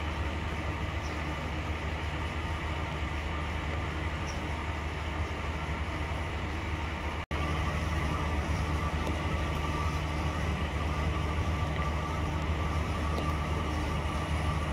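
A train's diesel engine running steadily, a low drone with a faint higher whine. The sound cuts out for an instant about seven seconds in, then resumes slightly louder.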